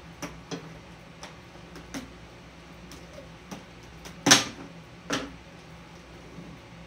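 A scattered series of light clicks and knocks, with one louder knock about four seconds in and another soon after.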